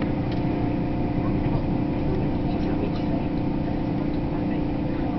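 Steady running noise inside a moving electric train: wheels rumbling on the rails under a steady electric hum, with a few faint clicks.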